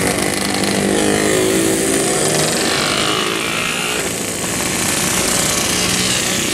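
Several Yamaha RX King 132 cc single-cylinder two-stroke motorcycles revving as they ride past one after another.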